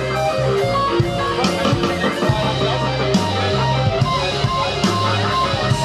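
Rock band playing live: electric guitar and bass over a drum kit, with a cymbal crash about every second and a half.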